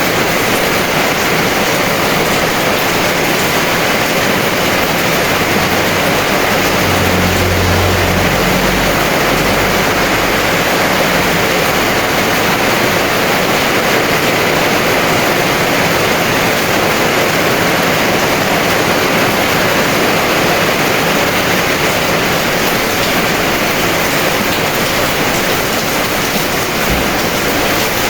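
Heavy rain pouring steadily, a dense even hiss, with a brief low rumble about seven seconds in.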